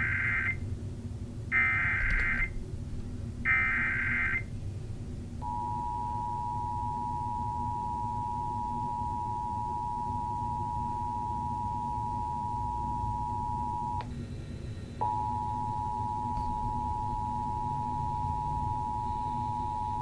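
Emergency Alert System tones played through a television: three short screeching SAME header data bursts, then the steady two-tone EAS attention signal. The attention tone drops out for about a second near the end before resuming.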